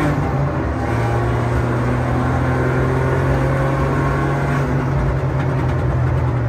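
Volkswagen Polo rally car's engine running hard at around five thousand rpm while driving at speed, heard from inside the stripped cabin as a loud, steady drone. Its pitch drops slightly about half a second in, then holds.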